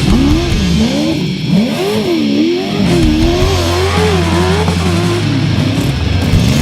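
Off-road race vehicle's engine revving, its pitch rising and falling again and again.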